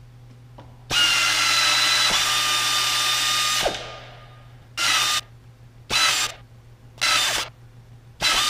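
Flexarm pneumatic tapping arm's air motor driving a tap into an aluminium part, running with a steady whine for nearly three seconds, then in four short bursts about a second apart.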